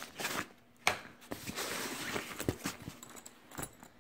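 Rummaging in a fabric gun bag: rustling of the cloth with several sharp clicks and knocks as items inside are handled, the loudest knock a little under a second in.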